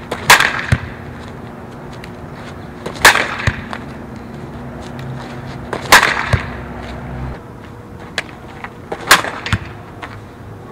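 Softball bat striking pitched softballs on power-slap swings: four sharp cracks about three seconds apart, each with a short ring, followed by fainter knocks.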